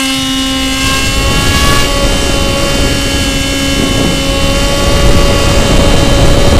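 RC plane's motor and propeller running with a steady whine, heard from a camera on the plane's nose, with heavy wind rush over the microphone. The rush grows louder near the end.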